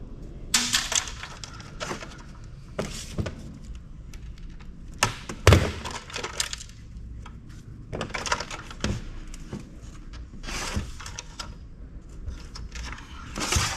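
Handling noise from disassembly: gloved hands and pliers working at a circuit board inside a sheet-metal chassis. Irregular clicks, knocks and scrapes, with one sharper knock about five and a half seconds in.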